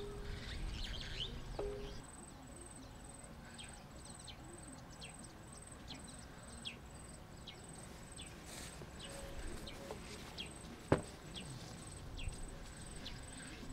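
Rural field ambience: an insect keeps up a high, evenly pulsed chirping, with short descending bird chirps scattered through it. A single sharp knock sounds about eleven seconds in.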